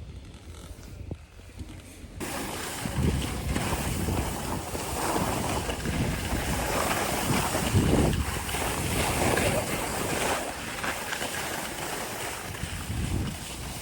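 Wind buffeting the microphone outdoors: a steady rushing with low rumbling gusts. It starts abruptly about two seconds in, after a quiet start.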